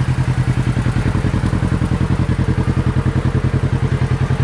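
Kawasaki Teryx KRX side-by-side's parallel-twin engine running at a steady pace while driving, a low drone with an even, rapid pulse.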